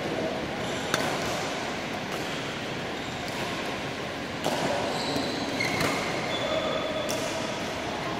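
Badminton play: a few sharp cracks of rackets striking shuttlecocks, the loudest about a second in, and short high squeaks of court shoes on the floor mats, over steady background noise.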